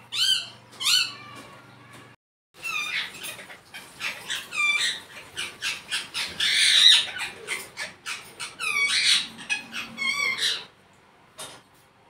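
Indian ringneck parakeet giving a rapid run of short, shrill squawking calls, several a second. The calls break off briefly about two seconds in and die away near the end.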